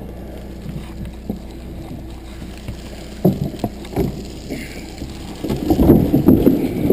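John Deere backhoe engine running steadily at low revs, with a few knocks partway through; about five and a half seconds in it grows louder and rougher as the machine works.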